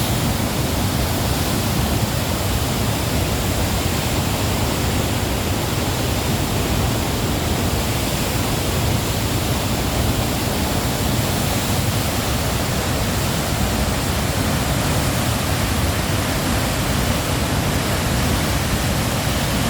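Waterfall: water falling and splashing with a loud, steady rush.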